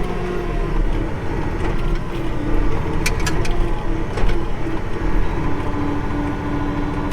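Tractor diesel engine running steadily under load, with a low rumble and a drone that sinks slightly in pitch, and a few short rattling clicks about three seconds in.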